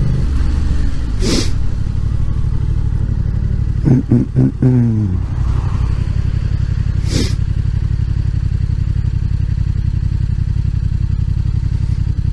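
Motorcycle engine running steadily at low road speed while riding, heard close up from the rider's position; the engine note changes about five seconds in. Two short hissing bursts break through, one near the start and one around the middle.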